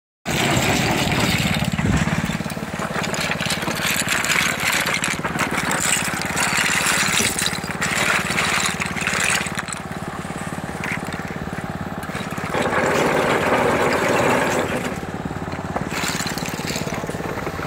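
A small engine runs steadily while oyster shells clatter and rattle as buckets of them are tipped onto a conveyor.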